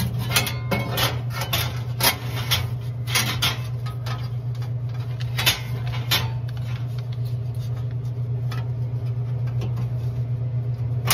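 Sharp metal clicks and knocks of sheet-metal shims and spacers being fitted by hand into the can columns of a Vendo 721 vending machine, several in the first six seconds and fewer after, over a steady low hum.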